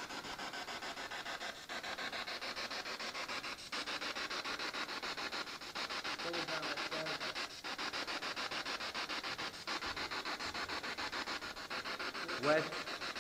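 Handheld spirit box sweeping through radio stations: fast-pulsing static hiss with a short dropout about every two seconds. A brief snatch of a voice cuts through near the end.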